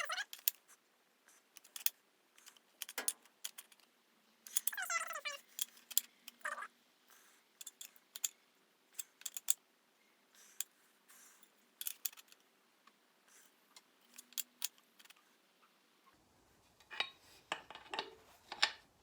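Irregular light clicks, scrapes and a few short squeaks as a tapered-thread intake air temperature sensor is worked by hand and tool into the intake tube's bung, turned carefully so as not to split the fitting.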